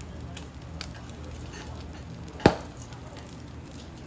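Charcoal grill with faint, scattered crackling ticks over a steady low hum, and one sharp, loud knock about two and a half seconds in.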